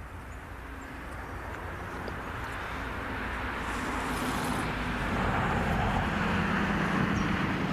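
Engine noise of an approaching vehicle, a low steady hum under a wider rush, growing gradually louder throughout.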